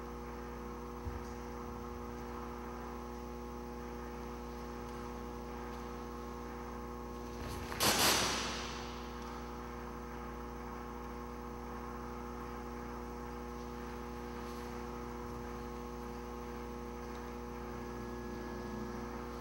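Steady electrical hum, with one sudden sampled sound played over the speakers about eight seconds in that rings out and fades over about a second, triggered by the dancer's arm-worn acceleration sensor.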